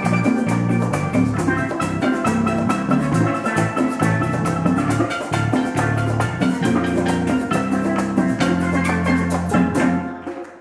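Live worship band playing an upbeat instrumental passage, with a steady fast drum beat over bass and keyboard notes. The music stops about ten seconds in.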